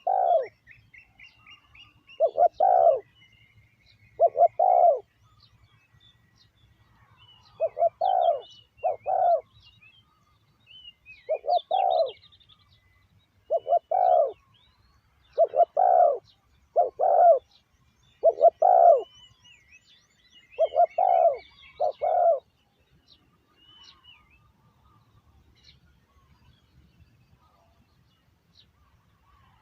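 Spotted dove cooing, a decoy bird calling to lure wild doves: repeated low coo phrases of two or three notes every couple of seconds, stopping a little over 20 seconds in. Small birds chirp faintly higher up.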